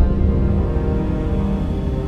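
Cinematic logo-sting music: held notes over a low rumble, slowly fading.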